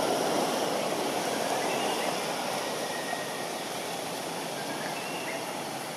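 Steady rushing ambient noise, easing slightly in level, with a few faint high chirps.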